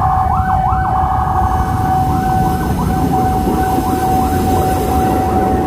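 A railway level-crossing warning siren and an ambulance siren sounding together: one steady alarm tone held throughout, with a siren sweeping rapidly up and down over it, quickening to about three sweeps a second after about two seconds. A low rumble runs underneath.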